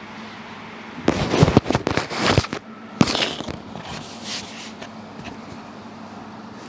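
A rapid run of cracks and pops from the foot joints as the foot is twisted and manipulated, followed about three seconds in by one sharp pop and a few faint clicks after it.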